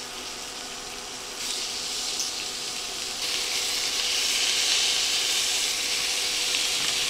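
Raw chicken breasts sizzling in hot butter in a skillet as they are laid in for a sear. The sizzle gets louder in two steps, about one and a half and three seconds in, as more breasts go into the pan.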